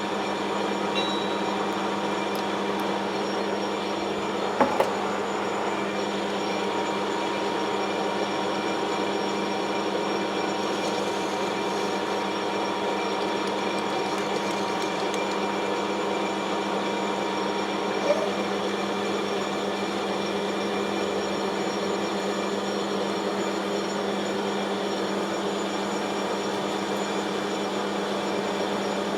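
Metal lathe running steadily, with a steady hum and several steady tones, while facing cuts are taken on a 4140 steel shaft. There is a sharp double click about five seconds in and another single click later.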